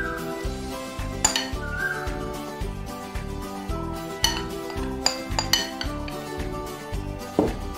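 A metal spoon clinks several times against a glass bowl and the bread as egg sandwich filling is scooped and spread, over background music with a steady beat.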